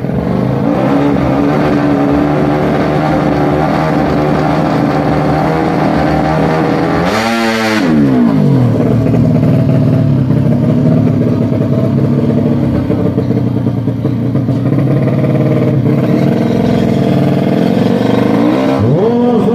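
Tuned 130cc four-stroke underbone drag bike engine running at the start line and being revved. The revs drop sharply once about seven seconds in and climb again near the end.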